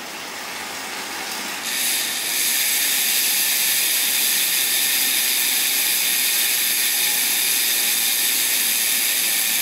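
Road bike spinning on training rollers: a steady whir of tyres on the roller drums and the turning drivetrain, building over about the first two seconds, then holding steady.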